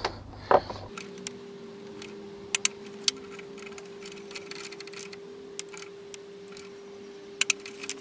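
Torque wrench tightening the front fork's axle clamp bolts to 23 newton metres: irregular sharp metallic clicks, over a faint steady hum.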